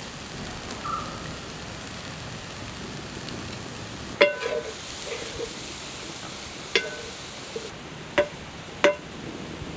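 A spatula knocking against a metal cooking pot four times, each clink ringing briefly, over a steady hiss.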